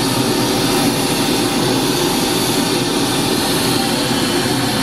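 Steady, loud hiss-like test noise played through a PA sound system's speakers, with no tone or rhythm, as the system's high-frequency response is being measured.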